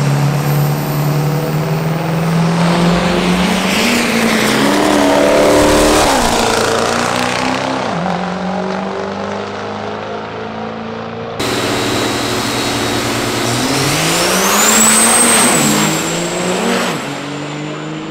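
Diesel drag trucks accelerating down the strip: the engine's pitch climbs, then drops sharply at a gear shift. After an abrupt cut, a second run does the same, with a high whine rising along with the engine.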